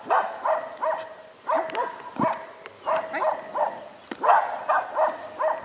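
A dog barking excitedly in quick, high, yelping barks, about two or three a second in short clusters, while it plays disc dog. A couple of sharp clicks come through between the barks.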